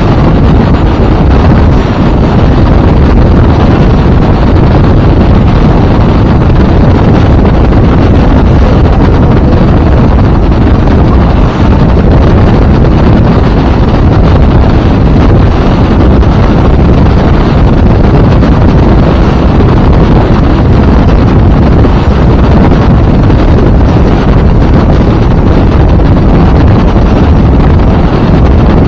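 Heavy wind buffeting the microphone aboard a motorboat under way, a loud, steady, low rumble with the boat's engine and water noise mixed in beneath it.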